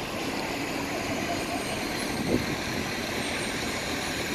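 Street traffic with city buses running close by, a steady engine and road noise, and one brief louder sound a little over two seconds in.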